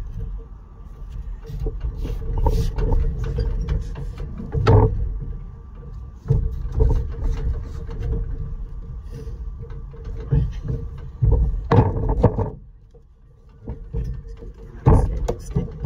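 Sheet lead being bent up along a fold by hand over a setting stick, with scattered knocks and handling noise and a few louder knocks. A steady hum runs underneath.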